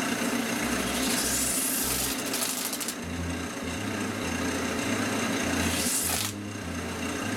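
Wood lathe motor running steadily, spinning a canvas at speed. Two rising hissing sweeps come through, about a second in and again near six seconds, and the level then dips slightly.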